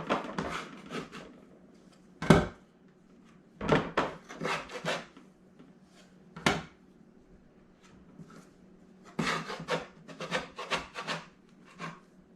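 Hands patting and pressing soft cookie dough on a wooden cutting board: short clusters of pats and knocks on the wood, with rubbing and scraping as the dough is worked and sticks to the board.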